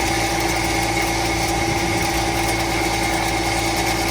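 An engine running steadily at an even speed, with a constant whine.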